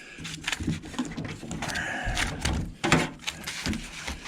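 Irregular knocks and clanks with a short scrape, from the metal housing and parts of a hot beverage dispenser being handled during tear-down. The loudest knock comes about three seconds in.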